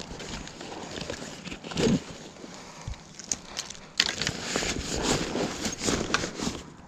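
Irregular rustling with light clicks and knocks as a bag is handled and packed, with a short louder knock about two seconds in. The rustling gets busier and louder about four seconds in.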